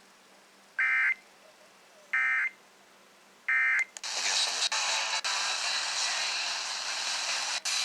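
Emergency Alert System SAME header data bursts: three short, harsh buzzing bursts about a second and a half apart, coming through an FM radio at the start of a Required Monthly Test. About four seconds in, a loud, steady hiss-like noise takes over.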